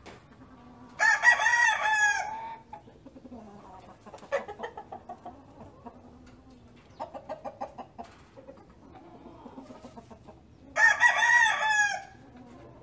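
Chickens: a rooster crows twice, about a second in and again near the end, with hens clucking in quick runs in between.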